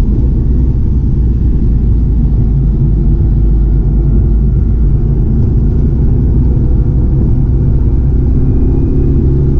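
Chevrolet Camaro ZL1 1LE's supercharged 6.2-litre V8 running hard on a race track with road and tyre noise: a loud, steady, low rumble with no clear revving up or down.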